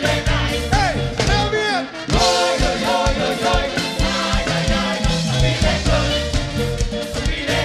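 Live soca band music: horn lines with rising and falling glides over a driving beat. The bass and drums drop out briefly before two seconds in, then come back.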